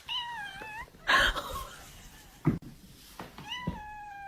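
A pet animal crying: a short, wavering, high-pitched call at the start, then one long, steady call that begins near the end.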